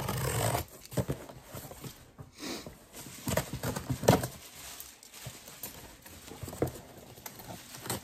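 Cardboard shipping box being opened and handled by hand: irregular rustling, crackling and knocks, the sharpest knock about four seconds in.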